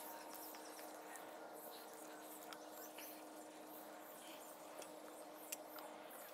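Faint outdoor background with a few light clicks and rustles of straps and metal climbing gear being handled against the tree trunk. The sharpest click comes a little past five seconds in.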